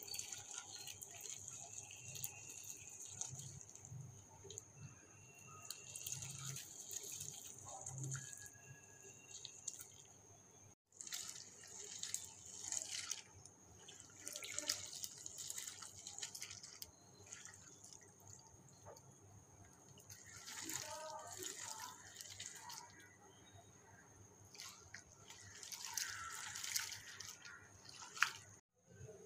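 Water sloshing and splashing in a steel bowl as a hand rubs and stirs soaked split green gram (moong dal), coming in irregular bursts. The grains are being washed to rub off their green outer skins.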